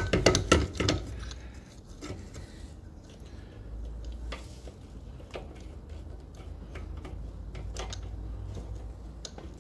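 Metal clinks and clicks as a motorcycle clutch basket with its sprocket and chain is worked onto the gearbox shaft to engage the key. A quick cluster of loud clicks comes in the first second, then single clinks every second or two.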